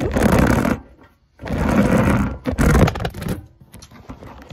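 Phone being handled and repositioned: loud rubbing and scraping noise on its microphone with a low rumble. It comes in two bursts, a short one at the start and a longer one from about a second and a half in, then fainter knocks.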